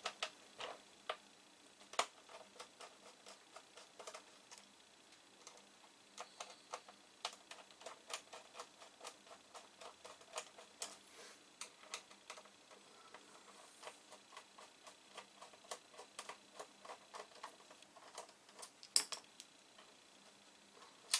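Light, irregular clicks and taps of hands working on a plastic computer case and its screws, with a sharper knock about two seconds in and another near the end.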